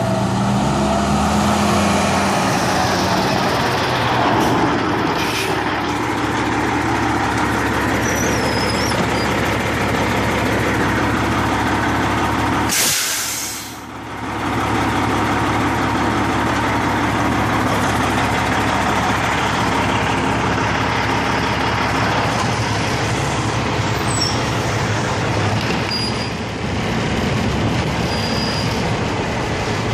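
Semi-truck tractor's diesel engine running steadily, first while the truck drives and then at idle, with a short hiss near the middle.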